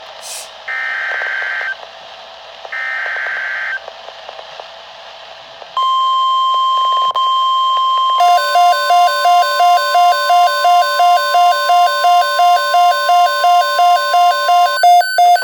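NOAA Weather Radio emergency alert: two one-second bursts of warbling SAME digital header tones, then the steady 1050 Hz weather-radio warning tone from about six seconds in. From about eight seconds in, a receiver's pulsing alarm beep, about three beeps a second, sounds over the steady tone.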